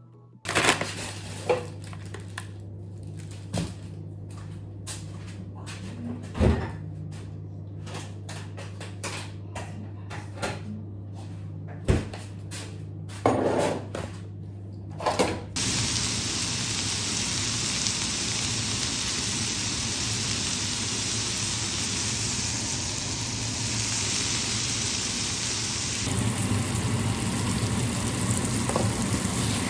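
Kitchen work: scattered clinks and knocks of dishes and utensils over a steady low hum. About halfway through, a continuous hiss starts and runs on, getting a little louder near the end.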